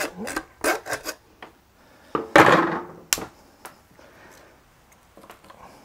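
Knocks and clatter of a hand saw and cuts of lamb being handled on a wooden cutting board, with one louder thud a little over two seconds in and a sharp click just after.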